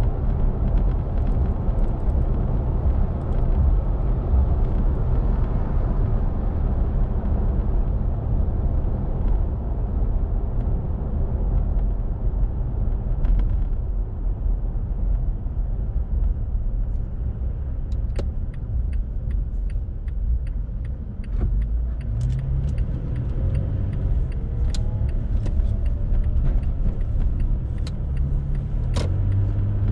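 Car driving along a road, heard from inside the cabin: a steady low rumble of engine and tyres. About two-thirds in the engine note climbs, and light clicks and ticks come in over the last third.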